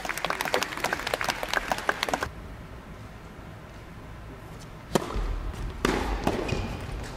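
Scattered applause for about two seconds, then quiet until a tennis serve strikes the ball about five seconds in, followed by a few racket hits and ball bounces of the rally.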